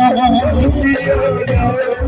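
Live devotional bhajan music played loud through stage loudspeakers: a held, slightly wavering melody line over low drum beats.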